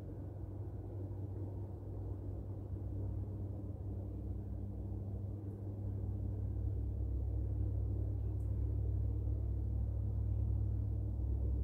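A low, steady engine rumble with a hum running through it, growing gradually louder.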